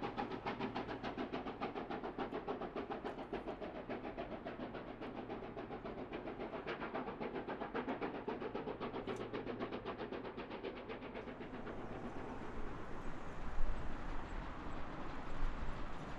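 Steam locomotive working a train, its exhaust beating rapidly and evenly, several beats a second. About eleven seconds in the beats give way to a steady rushing rumble of the train rolling on the rails, with one sharp clank near the end.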